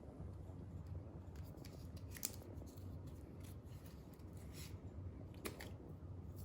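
Faint handling noise of a small package of tyre repair strips: scattered light clicks and rustling, over a low steady hum.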